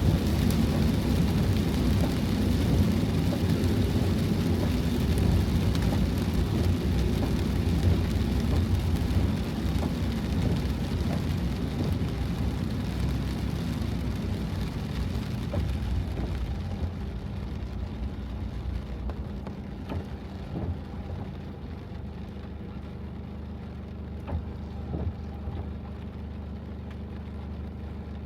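Heavy typhoon rain beating on a Toyota HiAce van, with a deep rumble underneath; the downpour eases and grows duller a little past halfway.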